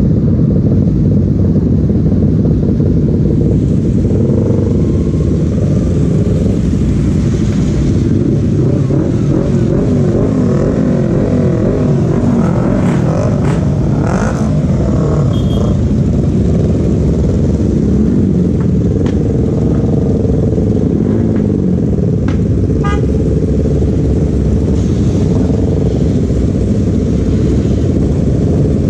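Motorcycle engine running on the move under a steady rush of road and wind noise, its pitch rising and falling as the rider speeds up and eases off.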